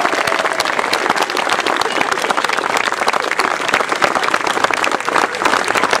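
An outdoor audience clapping steadily in a sustained round of applause.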